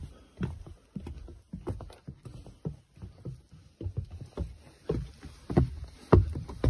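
Footsteps of a hiker climbing stairs, a regular thud about twice a second.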